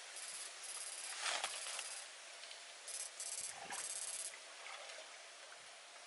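Backpack electrofishing unit with its two probes in ditch water, giving a high hissing buzz that comes and goes in several spells under a second long each, along with water sloshing as the probes are swept through the ditch.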